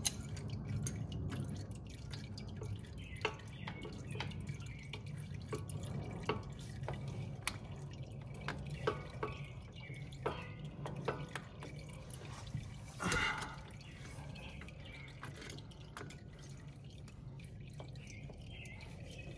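Hydraulic oil dripping from the tractor's underside into a drain bucket in irregular single drips, with small metal clicks of a wrench on a hose fitting. There is a brief scrape about 13 seconds in and a steady low hum underneath.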